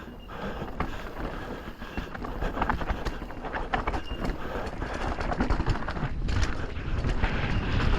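Amflow PX carbon electric mountain bike descending a rough trail: tyres rumbling over the ground, with rapid, irregular clattering and knocking from the bike.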